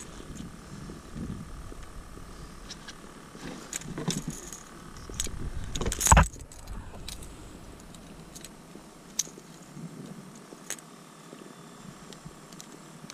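Scattered light clicks and metal clinking from hands and gear handling a small redfish on a plastic measuring board in a fishing kayak, with one loud knock about six seconds in.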